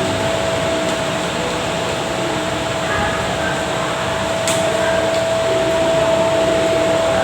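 Steady background noise during a wait on the call, with a constant hum-like tone running through it and a faint click about four and a half seconds in.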